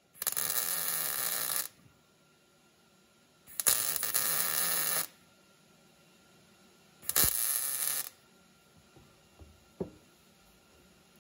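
Electric welder tack-welding sheet steel: three short bursts of steady crackling arc, each a second or so long, with a few faint clicks near the end.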